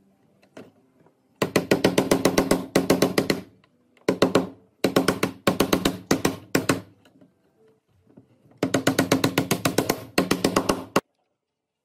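Wooden mallet tapping notched wooden strips down into their cross slots on a lattice. The taps are rapid, several a second, in runs of one to two seconds with short pauses between, and stop abruptly near the end.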